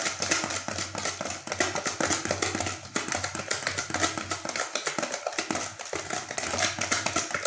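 Wire whisk beating eggs and powdered sugar in a plastic bowl: a quick, continuous run of light clicks and taps as the wires strike and scrape the bowl.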